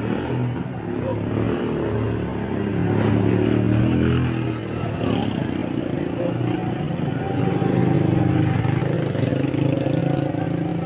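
A motor vehicle engine runs close by, swelling louder twice: about a third of the way in and again past the middle.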